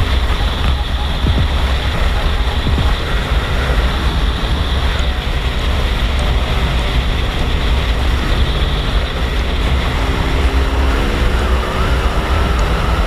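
Steady wind rush buffeting the camera microphone on a Ducati 848 Evo sport bike cruising at highway speed, with the bike's engine and tyre noise underneath.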